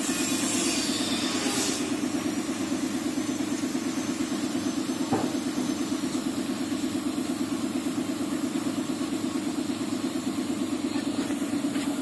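A motor running steadily, giving a low hum with a fast, even pulse. There is a single short knock about five seconds in.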